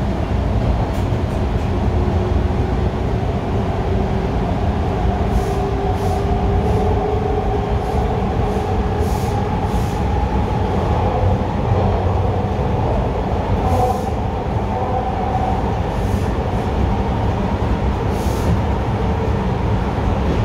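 Bombardier T1 subway train running between stations, heard from inside the car: a steady rumble of wheels on rail with a faint motor whine that rises in pitch during the first half.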